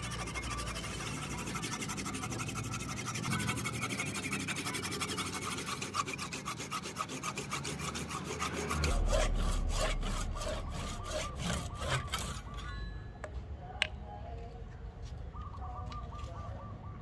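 Fine-toothed hand saw cutting through wood with rapid, even back-and-forth strokes, trimming the protruding wooden wedge ends flush with the top of an axe eye. The sawing stops about three quarters of the way through, followed by a single sharp click.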